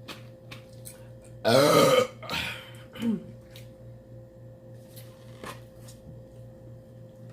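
A loud burp about a second and a half in, lasting about half a second and bending in pitch, followed by two shorter, quieter burps within the next second and a half.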